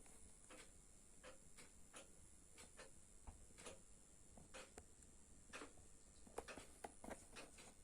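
Faulty LED bulb giving a faint steady high-pitched whine with irregular soft clicks and crackles, the buzz and rattle of a failing LED lamp.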